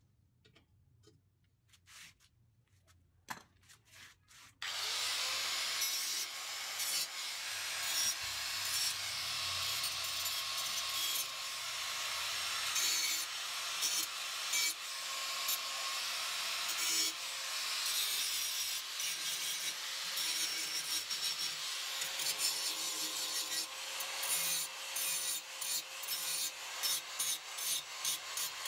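Handheld angle grinder grinding on a welded steel-tube frame: a steady, loud grinding hiss with a faint motor whine under it. It starts abruptly about five seconds in after a few light knocks, and near the end breaks into short stutters as the disc is touched on and off the metal.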